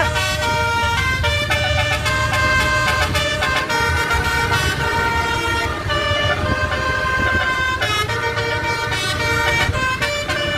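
Multi-tone 'telolet' bus horn playing a tune in held notes that step from pitch to pitch, over the low rumble of the bus engine.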